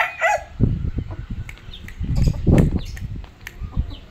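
A rooster's crow ends in the first half second. Then come a few sharp finger snaps over irregular low rumbling thumps.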